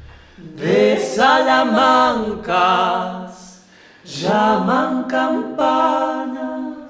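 Two voices, a man's and a woman's, singing a wordless vocal line in harmony, a steady lower note under a moving upper melody. The line comes in two phrases, the second starting about four seconds in.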